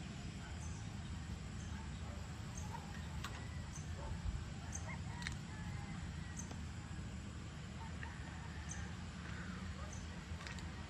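Outdoor evening ambience: scattered short bird chirps and calls over a steady low rumble.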